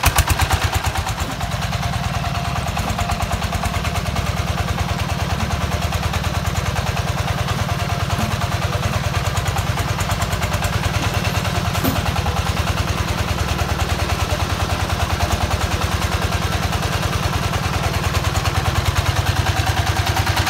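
A công nông farm truck's single-cylinder diesel engine running steadily with a rapid, even beat. It is a little louder in the first second and again near the end.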